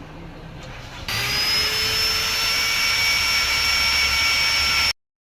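A loud, steady hissing whine with high whistling tones starts suddenly about a second in and cuts off abruptly near the end.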